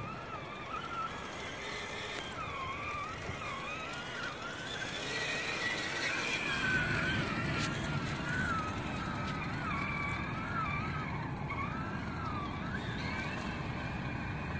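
Electric motor and gear drivetrain of a 1:10-scale RC trail truck whining as it crawls through mud, the pitch rising and falling with the throttle over a low rumble.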